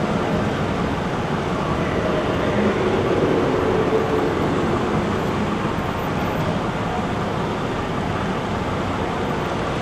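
Steady whir and rumble of H0-scale model trains running on a large exhibition layout, mixed with hall background noise, swelling slightly about three seconds in.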